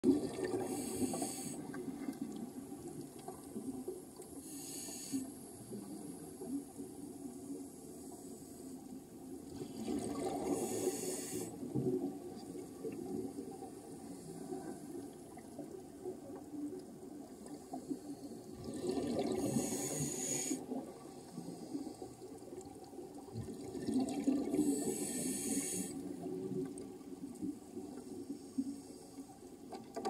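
Underwater recording of a scuba diver's breathing: five exhalations through the regulator, each a hissing rush of bubbles lasting a second or so, spaced several seconds apart over a low muffled underwater rumble.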